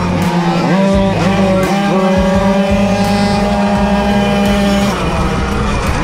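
Small two-stroke moped engines racing hard, Puch Maxi-type 50cc racing mopeds. The engine note dips and picks up again a few times in the first two seconds, then holds a steady high note for about three seconds before changing near the end.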